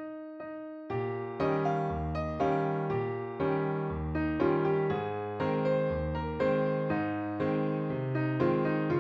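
Background music: piano or electric piano playing a gentle tune, with notes struck about twice a second and a short pause near the start.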